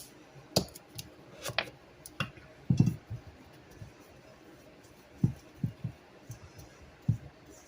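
Scattered clicks and knocks of kitchen utensils and containers against a mixing bowl as salt is added and stirred into seasoned flour for frying batter. Sharp, bright clicks come in the first three seconds and duller low knocks later.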